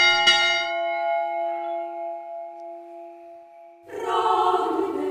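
Church bell struck, its ringing tones slowly dying away over a few seconds. About four seconds in, a choir begins singing.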